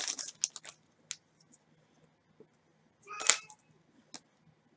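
Trading card being handled in and slid out of a rigid plastic toploader, giving light plastic clicks and rustles. There is a short crinkly rustle about three seconds in and a single click near the end.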